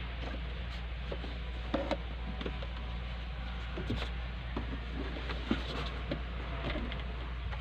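Scattered light clicks and taps of hands handling the truck's plastic dashboard trim, a few a little louder near 2 and 5.5 seconds in, over a steady low hum.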